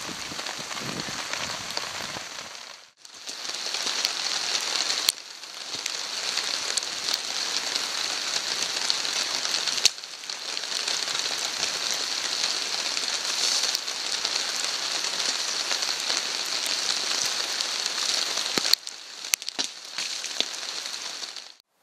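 Steady light rain falling around a campsite, a continuous hiss of drops with a few sharp pops.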